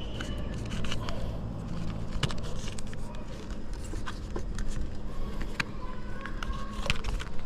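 Hands pressing and smoothing a pleated self-adhesive ridge flashing roll onto glazed roof tiles: crinkling and scraping with scattered sharp clicks, over a steady low hum.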